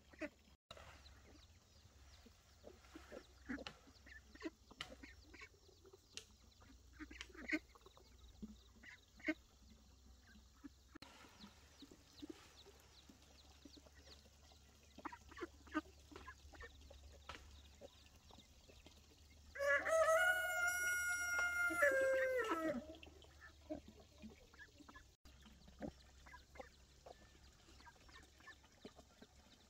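A rooster crows once, a single drawn-out call of about three seconds about two-thirds of the way through, the loudest sound here. Scattered light clicks and knocks come and go around it.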